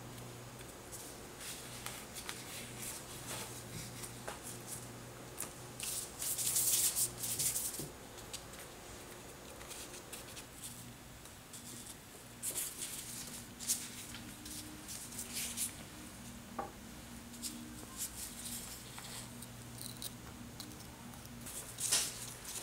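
Disposable plastic gloves rustling and rubbing as hands roll marshmallow-coated dates in milk powder, in short irregular bursts with a few soft taps, over a low steady hum.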